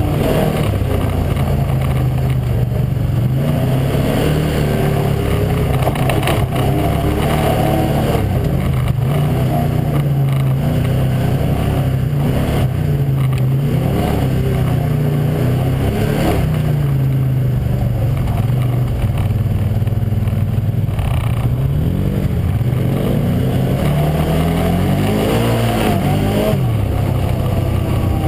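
Side-by-side UTV engine running under load, its pitch rising and falling again and again as the throttle is opened and let off over rough ground, with steady wind and gravel noise.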